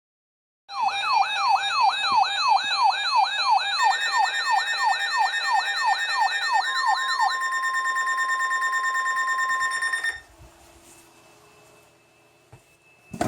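Weather alert radio sounding its warning alarm: a siren-like tone sweeping up and down about three times a second, with steady higher beeps joining it. The sweeping stops and a single steady alert tone, the kind that signals an incoming warning, holds for a few seconds before cutting off suddenly about ten seconds in.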